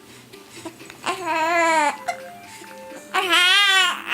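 A baby crying: two drawn-out, wavering wails of about a second each, the pitch rising and falling within each.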